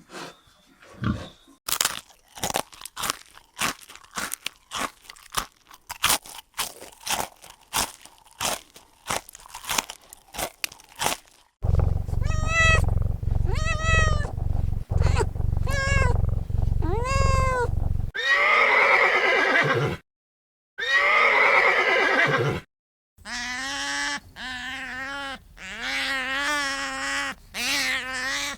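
About eleven seconds of crisp clicks and crunches, then a string of animal calls. First come short calls that rise and fall in pitch, then two harsher calls, then a run of lower, evenly repeated calls.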